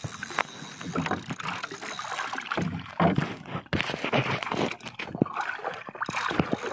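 Water lapping and sloshing against a small paddle outrigger bangka, with irregular knocks and clicks from the boat and the fishing gear being handled.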